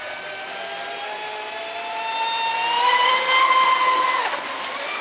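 Electric motor of a radio-controlled speedboat whining at speed, its pitch climbing steadily as it accelerates and growing loudest about three seconds in, then cutting off abruptly a little after four seconds as the throttle is released.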